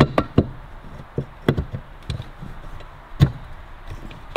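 Harley-Davidson WLA gearbox parts clicking and knocking against one another and the casing as the kickstart quadrant and shafts are wiggled and turned into line. The knocks are sharp and irregular, about seven of them, the loudest about three seconds in.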